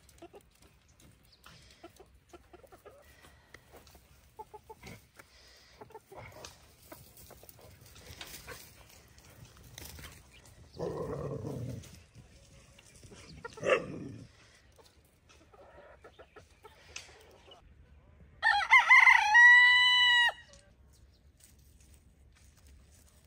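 Chickens in a pen: a few low clucks and small ticks of pecking and scratching, then a rooster crows once, a call of about two seconds, near the end. The crow is the loudest sound.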